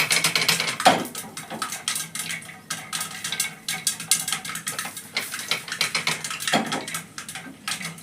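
Popcorn kernels popping inside a covered pressure cooker: a dense, irregular run of sharp pops and ticks against the metal pot and lid, with a couple of louder knocks. It means the kernels are popping; when the sound dies away, the corn is done.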